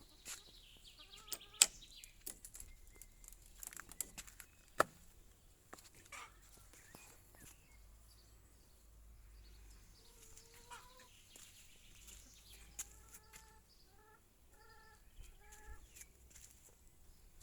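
Chickens clucking softly, with a run of short, evenly repeated clucks near the end. A few sharp clicks stand out in the first five seconds.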